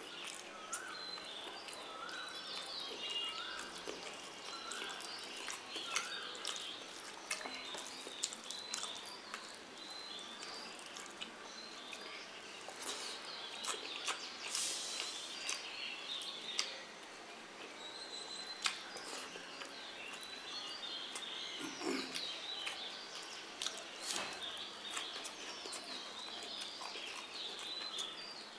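Birds chirping in the background with short repeated calls, over scattered small clicks and smacks of someone eating a meal of rice and curry.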